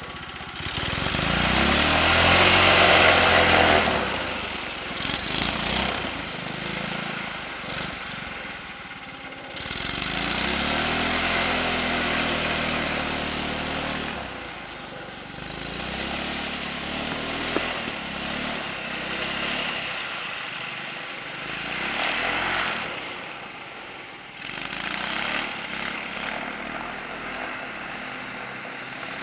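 Mini snowmobile's 200cc engine revving up and easing off over and over as the sled carves across the snow. The loudest surge comes in the first few seconds, with further surges about ten seconds in and again a little past twenty seconds.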